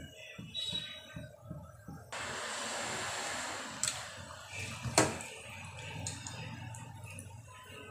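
Spiced water boiling hard in a pot, ready for the rice: a steady bubbling hiss that jumps louder about two seconds in and eases off again around four seconds, with a single sharp click about five seconds in.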